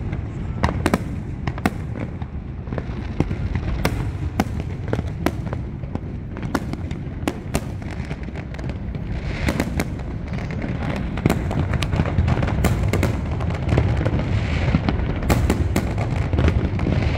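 Fireworks display: many sharp bangs and crackles at irregular intervals over a steady low rumble.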